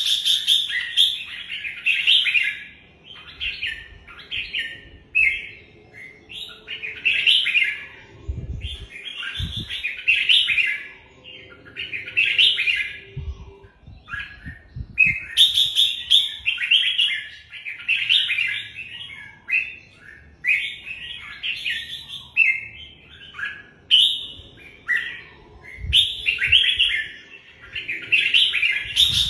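Red-whiskered bulbul singing: short, bright warbled phrases, about one a second, repeated almost without pause. A few low thumps come in under the song, about eight, thirteen and twenty-six seconds in.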